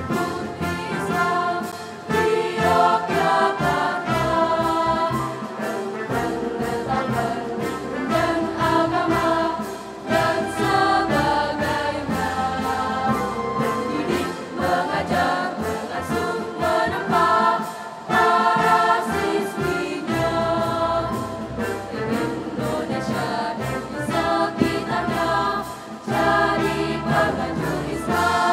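Girls' choir singing a school march in unison phrases over instrumental accompaniment.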